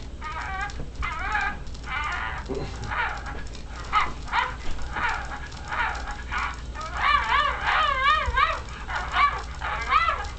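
Battery-operated plush chihuahua toy playing its recorded dog sounds through a small speaker: a string of short yips and barks, turning into longer wavering notes about seven seconds in.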